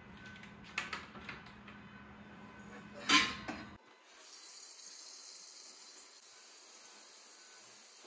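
Kitchen items being handled: a few light clicks, then one loud clatter about three seconds in, over a low hum that stops abruptly. After that comes a steady high hiss.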